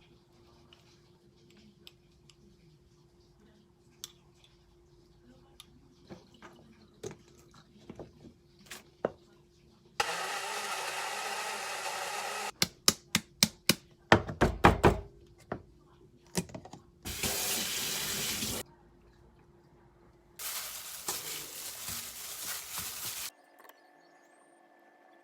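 Kitchen tap running in three spells of a few seconds each, with scattered small clicks and knocks before and between them and a loud short clatter of knocks in the middle.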